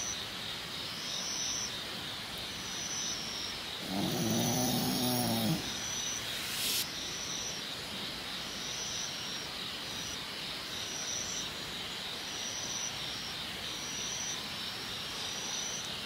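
A small dog lets out one low, drawn-out grumble about four seconds in, its pitch rising and falling, over a steady background hiss. A short rustle follows soon after.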